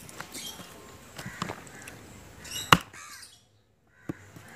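Crows cawing while a large knife chops green stalks on a wooden board, with a sharp knock of the blade hitting the board a little past the middle and a smaller one near the end. The sound drops out completely for about half a second between them.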